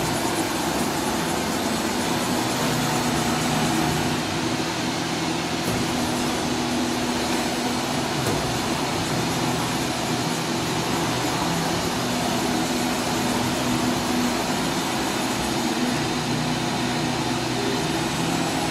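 Doosan DNM 400 vertical machining center moving its X-axis: the axis servo motor and ball screw driving the table, a steady machine hum with several held tones.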